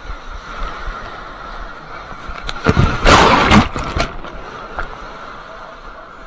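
Surf water sloshing against a camera held at water level, then a rush of breaking whitewater splashing over it about two and a half seconds in, the loudest part, lasting about a second and a half before it settles back to a steady wash.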